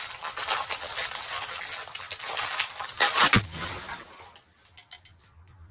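Foil-lined snack bag crinkling loudly as it is pulled at, then ripping apart with a sharp burst about three seconds in. Small crunchy snacks then scatter onto the table with light ticks.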